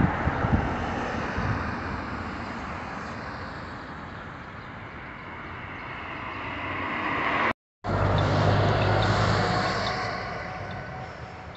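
City street traffic: cars passing, the noise swelling and fading, broken by a short cut about two-thirds of the way in. After the cut a passing vehicle's low engine hum is the loudest part, fading away near the end.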